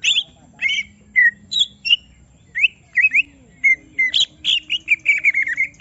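Green leafbird (cucak ijo) singing agitated, stirred up by a rival: a fast string of sharp whistled chirps, some rising and some falling, breaking into a quick run of notes near the end.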